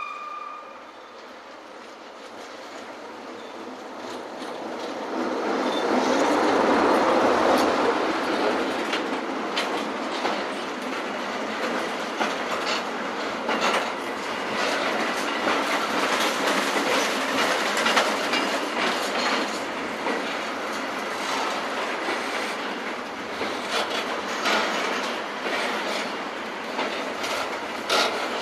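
A long freight train of Laaers car-carrier wagons rolling past at close range. The sound of the approaching locomotive builds up to a peak about seven seconds in, then gives way to a steady rolling rush with a continual clatter of wheels over rail joints.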